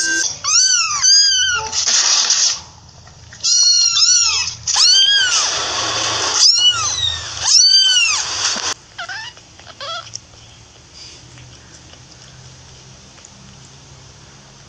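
A small kitten meowing repeatedly: a string of high, thin calls, each rising and falling in pitch, with the last two fainter, about ten seconds in.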